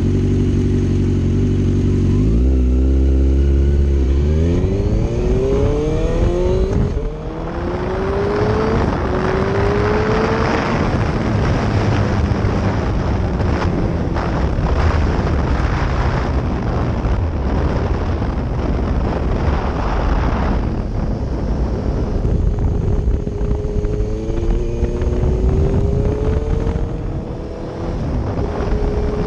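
2005 Suzuki GSX-R750's inline-four engine pulling hard up through the gears, its pitch climbing in several rising sweeps with a short drop at each shift, then wind rushing over the microphone at speed. Near the end it accelerates up through the gears again.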